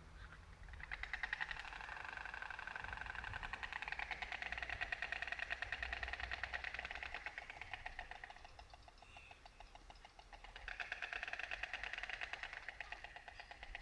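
White storks clattering their bills: two long bouts of fast, even rattling, the first fading out about eight seconds in and the second starting about eleven seconds in.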